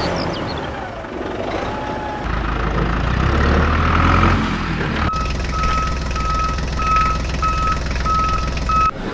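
A vehicle engine rumbling, then a reversing alarm beeping about twice a second over it for the last four seconds.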